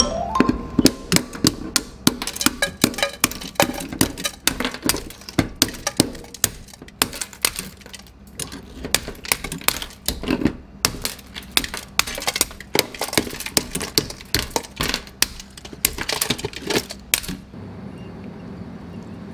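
Giant whelk shell being cracked and chipped apart with metal pliers over a stainless steel sink: a long run of sharp, irregular cracks and snaps, with shell fragments clattering onto the steel. The cracking stops near the end.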